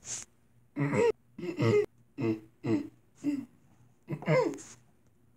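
A person's voice making a string of about six short non-word vocal sounds, each under half a second, with short silences between them.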